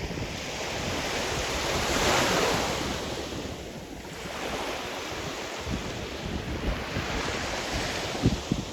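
Sea surf: a wave breaks and washes in, swelling to a peak about two seconds in and fading, then a smaller wave follows, with wind buffeting the microphone and a low thump near the end.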